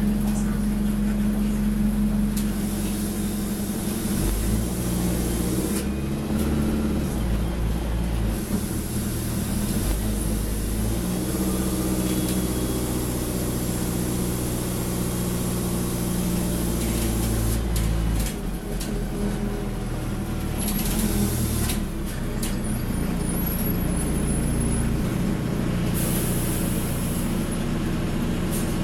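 Ikarus 405 city bus under way, heard from inside the passenger cabin: its engine and drivetrain run with the engine note stepping up and down as the bus pulls away and slows. There are a few short stretches of hiss.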